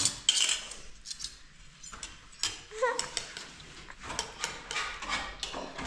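Light clinks and scrapes of spoons on bowls and a pot as stew is served out, in a string of short sharp clicks, with one brief child's vocal sound about halfway through.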